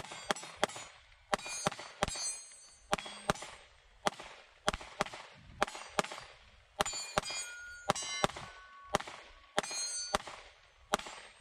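A long string of about two dozen 9mm pistol shots from a Glock 19 Gen 5, fired in quick pairs and triplets with short pauses, with a metallic ring trailing many of them. The firing stops about a second before the end.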